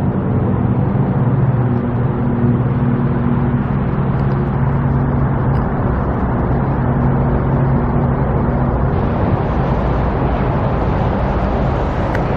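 A car's engine running steadily under a continuous rumble of road noise.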